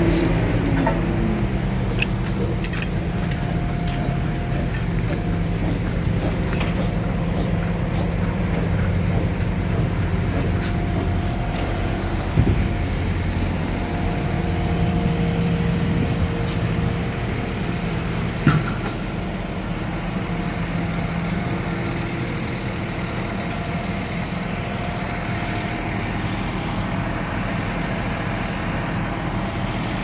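Diesel engines of heavy construction machinery running steadily. One engine eases down from a higher pitch in the first second or so, and there are two sharp knocks, about 12 and 18 seconds in.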